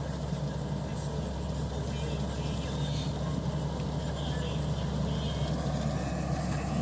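Combine harvester's engine running with a steady low drone.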